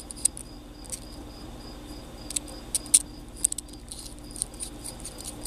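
Crickets chirping steadily, a few chirps a second, with sharp, irregular metal clicks and clinks from the stainless steel flashlight and its parts being handled. The loudest click comes about three seconds in.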